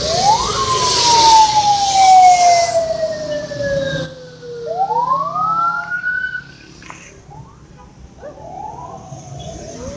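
A bus's telolet musical horn sounding siren-like sliding tones. It sweeps up, falls slowly for about four seconds, then sweeps back up, with a few shorter whoops near the end. The rushing noise of a passing vehicle fades out about four seconds in.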